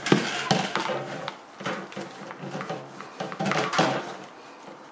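Microfibre cloth wiping a fan's wire-mesh guard, the cage rattling and knocking against the table as it is handled. There is a sharp knock right at the start and another burst of clattering about four seconds in, with scraping and rubbing between.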